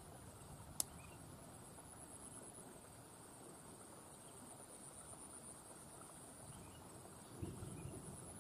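Insects chirring in a steady, high, thin drone over a quiet background, with a single sharp click about a second in and a brief low rustle near the end.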